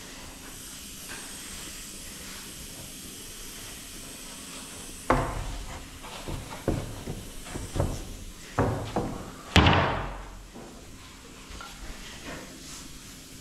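A run of about seven irregular knocks and bangs, wood-workshop impacts as furniture parts are handled and struck, starting about five seconds in. The last bang is the loudest and rings briefly. A faint steady hiss runs underneath.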